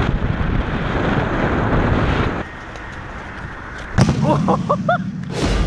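Edited transition sound effects: a dense rumbling glitch noise that cuts off abruptly about two and a half seconds in, then a sharp hit about four seconds in followed by a few short rising cries.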